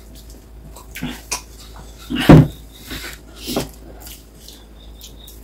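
Close-miked eating by hand: mouth sounds of chewing and smacking over rice and eggs, in short bursts about one, two and three and a half seconds in, the one about two seconds in much the loudest.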